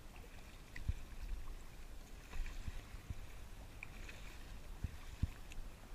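Sea water splashing and lapping against an RTM Tempo plastic sit-on-top kayak as it is paddled through chop, with a low rumble of wind on the microphone. Several short, dull knocks of waves slapping the hull come through, a few of them close together near the end.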